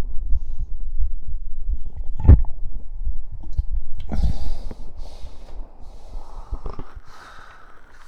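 Stomach gurgling and rumbling after drinking soda, recorded close against the belly. It is a run of irregular low gurgles, with two louder sudden ones about two and four seconds in, and it grows quieter after that.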